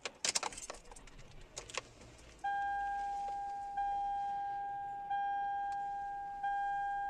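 A few sharp clicks and rattles, then from about two and a half seconds in a single steady pitched note that is struck again about every second and a third, fading each time before the next.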